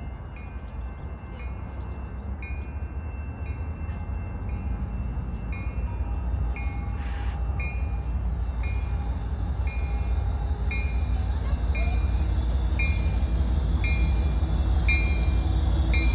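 Trinity Railway Express commuter train's diesel locomotive approaching, its low rumble growing steadily louder, while a bell rings about twice a second.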